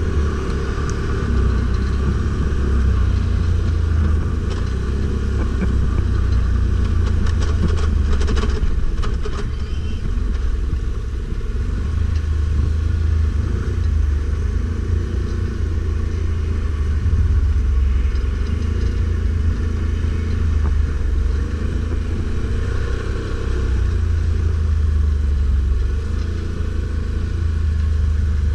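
Stels Guepard 850 ATV engine running as it is ridden off-road, its engine speed rising and falling. A brief spell of clattering comes about eight seconds in.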